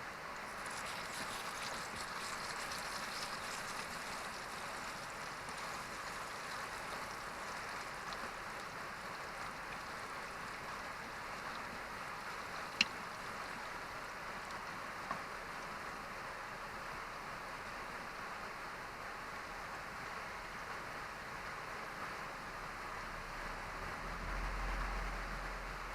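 Mountain stream rushing steadily, with one sharp click about halfway through and a brief low rumble near the end.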